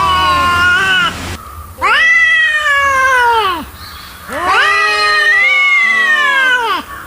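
Angry cat yowling: a drawn-out wail that ends about a second in, then two more long wails of about two seconds each, each rising and then falling in pitch, with short pauses between them.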